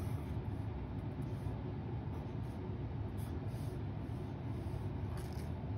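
Felt-tip marker pen writing Urdu letters on paper, faint short scratchy strokes, one clearer stroke about five seconds in, over a steady low hum.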